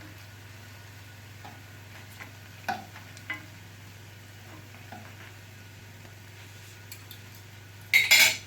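Oladyi frying in shallow oil in a frying pan, a faint steady sizzle, with a couple of light clicks of a utensil against the pan about three seconds in and a loud, brief metal clatter on the pan near the end.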